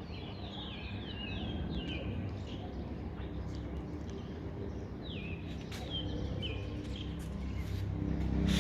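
Small birds chirping, short downward-sliding chirps in quick runs, one run at the start and another about five seconds in, over a steady low hum.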